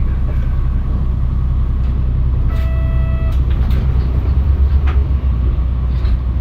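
Mitsubishi Fuso Aerostar KC-MP717 city bus under way, heard from inside the cabin: its diesel engine drones steadily, with scattered rattles and clicks. A short electronic beep sounds about two and a half seconds in. The low engine note swells and pulses for about a second around the middle.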